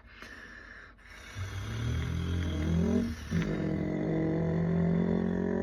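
Subaru WRX STI's 2.5-litre EJ257 turbocharged flat-four boxer engine, quiet at first, then revved twice: a short rise in revs about a second and a half in, then a second rev held high for about two seconds.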